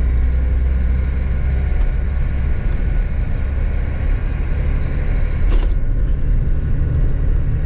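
Truck engine running and road noise heard inside the cab while driving, a steady low rumble. A brief knock comes about five and a half seconds in.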